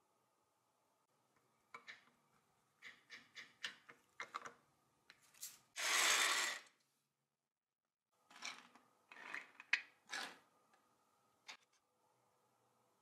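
Small 9.5 mm film reels handled on a hard tabletop: a quick run of clicks and light scrapes, then a louder rubbing scrape lasting about a second, about six seconds in, and after a short gap more clicks and scrapes as the reels are picked up and set down.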